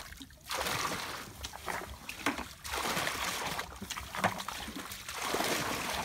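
Muddy water pouring and splashing from a plastic bucket being emptied while bailing out a shallow ditch. Two long pours, the second starting just before the halfway point.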